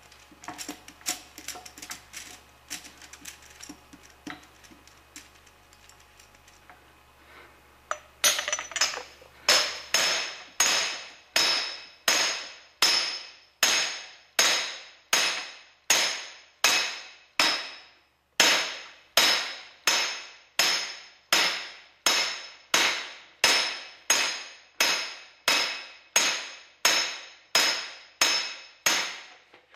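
Hammer blows on a metal driver pipe, driving the warmed front bearing onto a Dodge NV4500 transmission's main shaft. After some light metal clinks, a steady run of ringing strikes comes at about three every two seconds, with one short pause about two-thirds of the way through.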